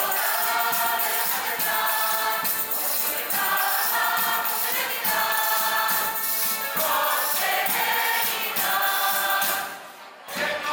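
Mixed folk choir singing an Extremaduran folk song, accompanied by guitars, laúdes, accordion and tambourines keeping a steady beat. The music drops away briefly near the end, then picks up again.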